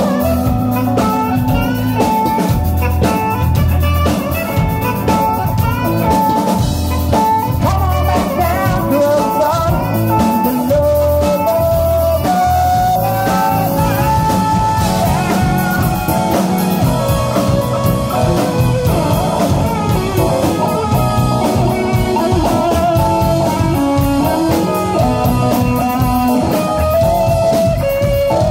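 Live rock band playing loudly through the PA: drum kit, electric bass and electric guitar, with a stepped melody line over them.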